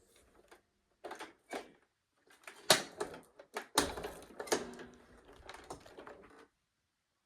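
A run of irregular clicks and knocks, several sharp ones among lighter rattles, stopping a little over six seconds in.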